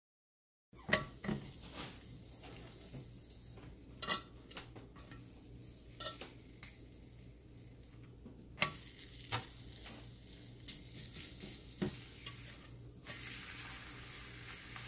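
Flour tortilla sizzling faintly in a hot cast-iron grill pan, with a few sharp clicks and taps.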